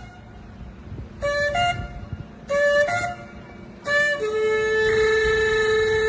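Long spiralled shofar horn blown: two short blasts, each stepping up in pitch, then a long held blast starting about four seconds in.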